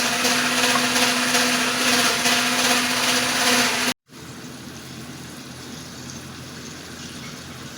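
Loud steady hum of an electric kitchen appliance motor, cutting off suddenly about four seconds in. After that, a quieter steady hiss of oil sizzling in the pan.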